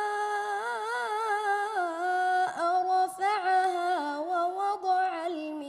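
A boy reciting the Quran in melodic tajweed style, drawing out one long vowel with rapid trills and pitch turns. The held note steps down in pitch about two seconds in and slides lower near the end.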